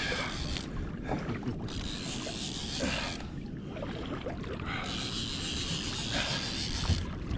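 Water sloshing around a kayak, with wind buffeting the microphone, in uneven surges.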